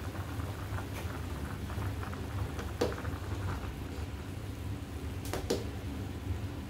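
Chicken broth boiling hard in a stainless steel pot on a gas stove: a steady bubbling with a low rumble under it. A metal spoon knocks sharply against the pot about three seconds in, and again twice about five seconds in.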